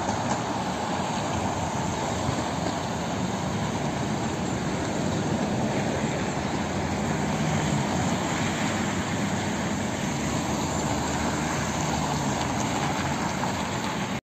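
Steady city road traffic: cars, vans and diesel buses driving past on a multi-lane street, engine hum and tyre noise blending together.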